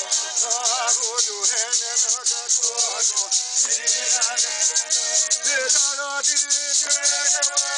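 Krahô chant: voices singing held, wavering notes over a gourd maracá rattle shaken in a fast, steady rhythm.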